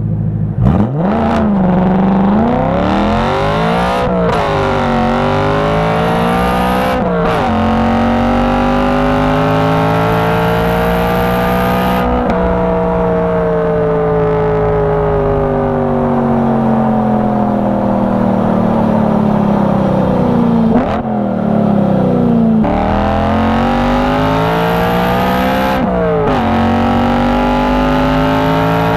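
BMW E92 M3's 4.0-litre V8 exhaust accelerating hard through the gears, its pitch climbing and then dropping abruptly at each of three quick upshifts. It then pulls steadily in a higher gear, eases off into a long falling note of about nine seconds, and accelerates through three more upshifts near the end.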